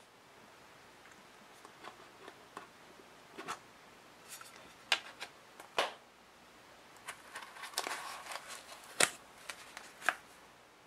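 Hands handling a round metal watch tin as its lid comes off: scattered sharp taps and clicks, several loud ones in the second half, with light rustling between them.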